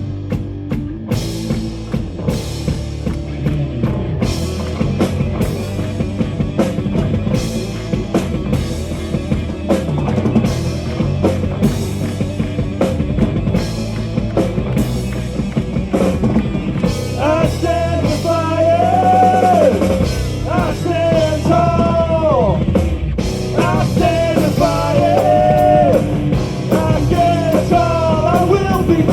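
Live metal band playing an instrumental passage, the drum kit driving it. A little over halfway through, a high lead melody with bending notes comes in on top.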